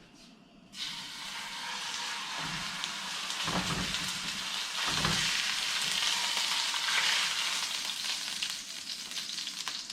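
Food going into hot oil in a pan: a loud frying sizzle starts suddenly about a second in and keeps going steadily, with a few low knocks of the pan and food being handled.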